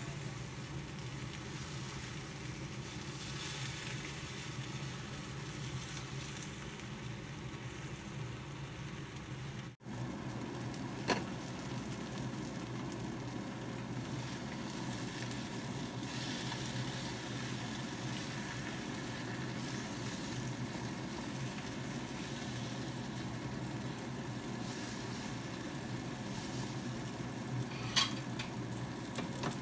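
Food sizzling steadily as it fries in a wok, with a brief break about a third of the way in and two sharp clicks, one shortly after the break and one near the end.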